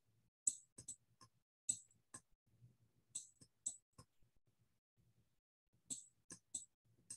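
Computer mouse button clicking, faint and sharp, about a dozen clicks in small uneven groups, pressed and released as strokes of handwriting are drawn on screen.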